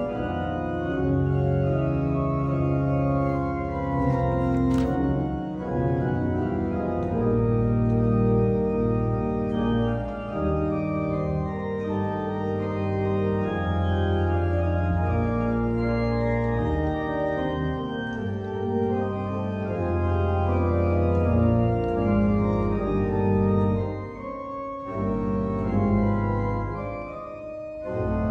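Church organ played four-hands as a duet: sustained full chords over a held bass, with the sound thinning briefly twice near the end between phrases.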